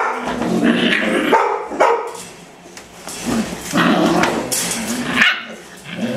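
Several eight-week-old Rottweiler puppies barking and yipping at play, in bouts with a brief lull about two seconds in.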